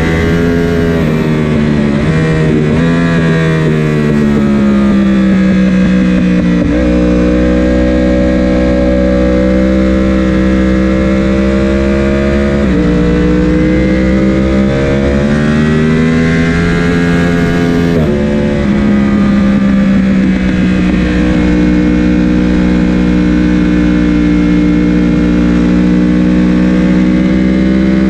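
Sport motorcycle engine at track speed, heard from onboard. The revs fall in the first few seconds, then climb and drop sharply at two upshifts, about halfway through and about two-thirds through, under a steady rush of wind noise.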